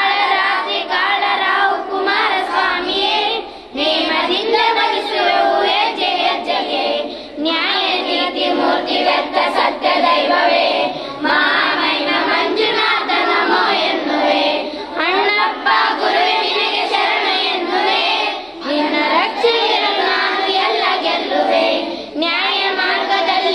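A group of children singing a prayer song together in chorus, without a break apart from short pauses for breath, during a puja offering.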